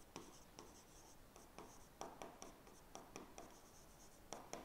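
Pen writing on a board: faint, short taps and scratches at an uneven pace as letters are written, a slightly louder pair of taps near the end.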